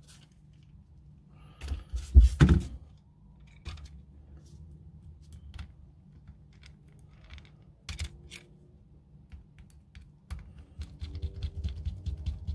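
Small hard clicks and taps of a screwdriver and small parts against an airsoft 1911 pistol frame as a small cross-head screw is driven in. There are a couple of louder knocks about two seconds in, and a denser run of quick clicking near the end as the screw is turned.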